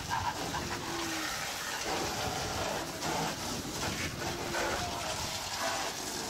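Steady background din of a busy amusement park, with short snatches of distant voices.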